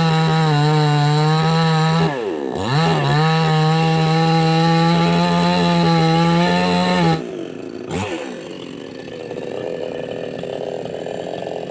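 Two-stroke chainsaw held at high revs, sagging briefly about two seconds in and picking back up, then let down to a lower idle about seven seconds in, with one quick rev blip a second later.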